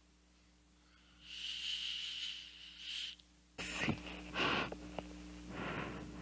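Breath through an e-cigarette: a long hissing draw with a thin whistle, then a few short breathy puffs as a thick cloud of vapour is blown out.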